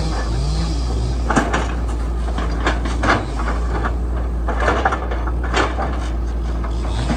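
Excavator's diesel engine running steadily, with several sharp clanks from the machine as it works.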